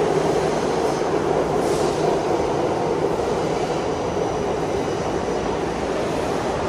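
New York City IRT subway train of stainless-steel cars moving along the platform track, a steady, unbroken noise of wheels on rail.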